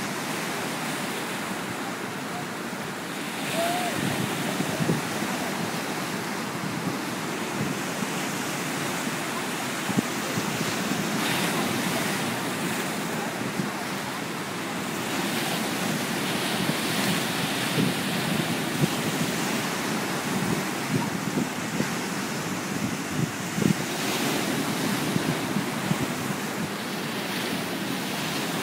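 Atlantic surf breaking and washing over a flat rock reef shelf: a steady rushing hiss of foam and water that swells with each incoming wave every few seconds.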